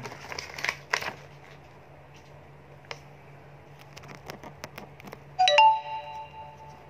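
Paper instruction sheet rustling and plastic toy parts clicking as they are handled, densest in the first second, with scattered clicks after. About five and a half seconds in, a sudden bell-like chime rings for about a second and a half and is the loudest sound.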